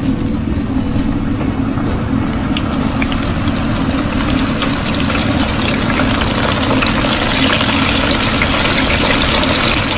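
Sweet potato strips and peels deep-frying in hot oil: a dense, steady sizzle full of rapid crackling pops, growing a little louder toward the end.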